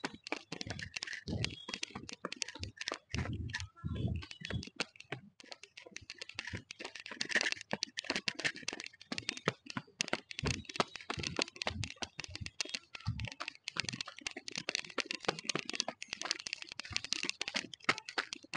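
Handling noise from a small clip-on microphone held in the hand during a climb up concrete steps: dense, irregular clicking and rustling, with occasional low thuds of footsteps.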